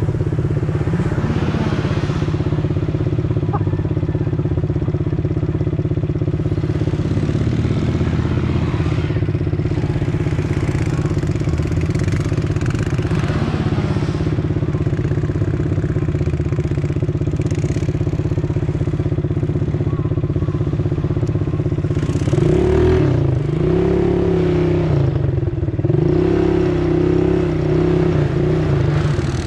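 A motor vehicle's engine running steadily under way, its pitch rising and falling a few times as the throttle changes, most of all near the end.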